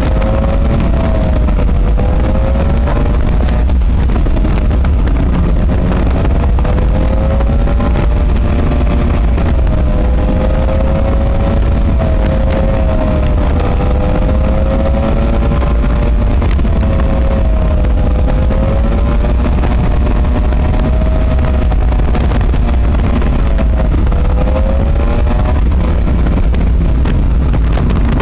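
Subaru EJ22 flat-four engine in a VW Type 2 bus, heard from inside the cab while driving, its note rising and falling with the revs over a heavy low rumble.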